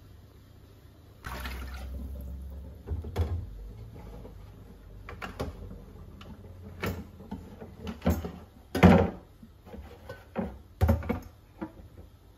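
Water splashing into a stainless steel sink for a few seconds, then a string of knocks and clatters as a Thermomix TM6's stainless steel mixing bowl, lid and parts are handled and rinsed in the sink.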